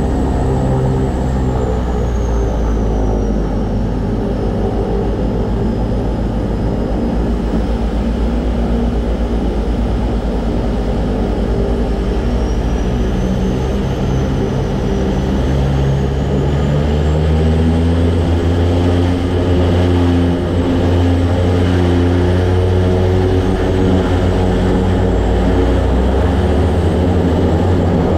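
DHC-6-300 Twin Otter floatplane's PT6A turboprop engines and propellers running at taxi power on the water: a steady propeller drone with a thin high turbine whine. The drone sags slightly a few seconds in, then rises in pitch and grows louder about sixteen seconds in as power is added.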